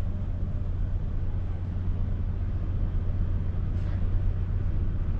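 Steady low engine rumble with a constant hiss over it.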